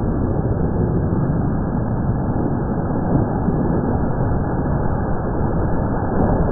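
Four-wheel drive travelling along a wet bush track: a steady, dull rumble of engine and tyre noise with no high sounds.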